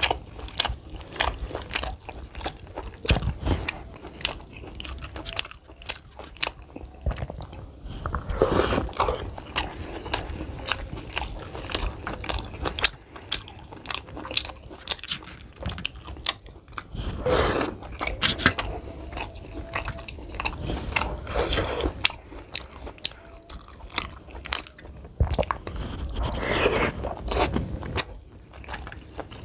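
Close-miked biting and chewing of fried snacks and steamed momos, with crunching and many sharp, wet mouth clicks throughout.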